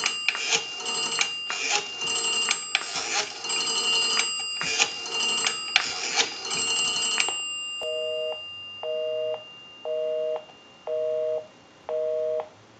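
Rotary dial of a Western Electric 233G payphone wound round and released digit by digit, clicking as it spins back. About eight seconds in, a busy signal follows: a low two-note tone beeping on and off about once a second, because the number called is busy.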